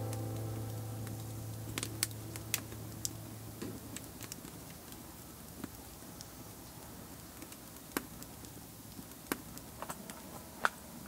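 Wood fire burning in an open brick barbecue, crackling with scattered sharp pops and snaps.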